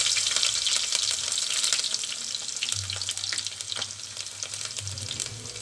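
Chopped garlic sizzling in hot coconut oil with mustard seeds, a steady frying hiss that is loudest at first and eases off gradually, with a few sharp pops.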